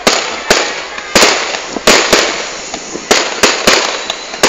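Fireworks display: aerial shells bursting in an irregular string of about nine sharp bangs over four seconds, each trailing off in an echoing tail.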